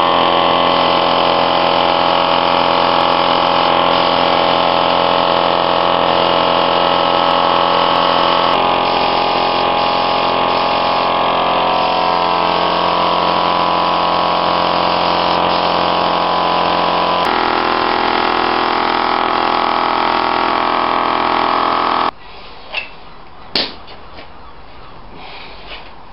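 Air spray gun hissing as it sprays paint, with an air compressor running steadily underneath. The sound changes slightly twice, then cuts off suddenly near the end, leaving two sharp clicks.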